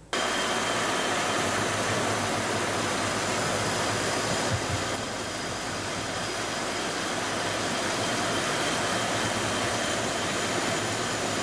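Centerless grinding machine grinding a steel bar: a steady, even noise of the abrasive wheel cutting the metal that starts suddenly and holds level, with a faint high whine.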